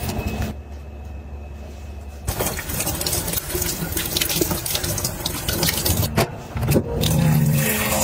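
Kitchen tap water splashing into a foldable electric kettle's stainless-steel pot as it is rinsed and filled, starting about two seconds in, with a few knocks of the pot, and louder near the end.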